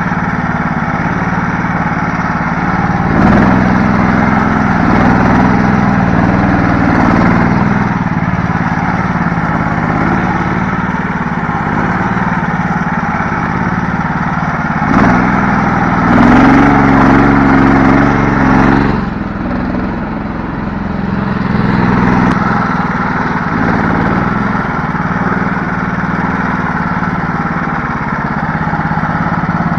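Homemade karakat all-terrain vehicle's small engine running under load as it drives, getting louder twice for a few seconds as it is pushed harder, then easing off briefly.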